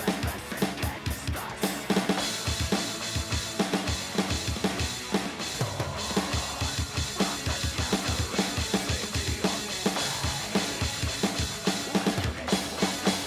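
Metal drumming played on the Real Drum touchscreen drum app: rapid kick drum strokes with snare hits over them.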